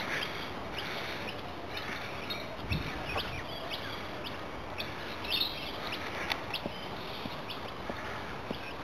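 Birds calling: many short, sharp chirps scattered throughout, some in quick clusters, over a steady background hiss.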